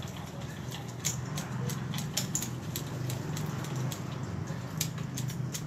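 Hand pruning shears snipping small ficus (sanh) twigs on a topiary: rapid, irregular sharp clicks, several a second, over a low steady hum.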